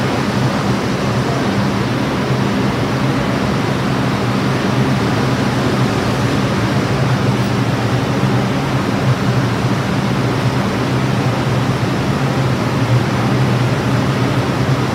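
Steady hiss and low hum of a New York City subway train standing in the station with its doors open: the cars' air conditioning and electrical equipment running, with platform and crowd ambience.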